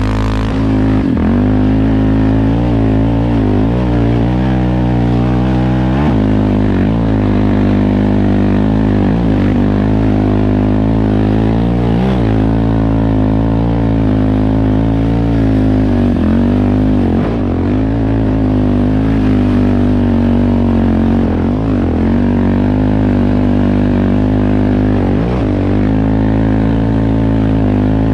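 2017 Yamaha Raptor 700R quad's single-cylinder four-stroke engine running under way, its revs rising and falling again and again with the throttle.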